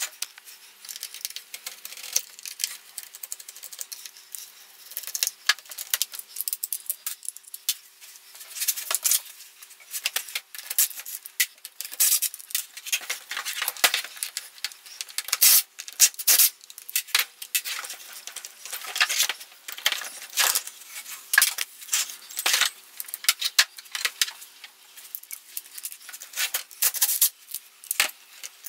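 Irregular clicks, taps and clatter of chainsaw housing parts and small screws being handled and set down on a workbench while the saw's covers are taken off and changed.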